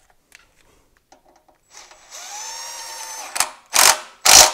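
Red cordless power driver running a starter-mounting bolt into the engine with a steady whine for about a second. It ends in three short, loud bursts as the bolt runs home and tightens.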